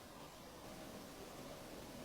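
Faint steady hiss of room tone, with no distinct sound.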